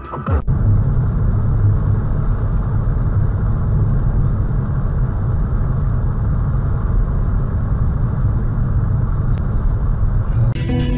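Car driving, a steady low rumble of engine and road noise as picked up by a dash cam inside the car. Music comes in near the end.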